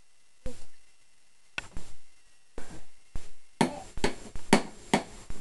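Sharp clanks and knocks from a dishwasher being handled by a small child: a few spaced hits, then a quicker run of them near the end.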